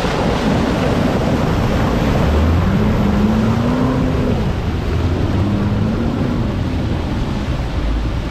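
Mitsubishi L200 pickup's engine running under a steady rush of noise, its pitch rising and falling twice as it revs, with wind buffeting the microphone.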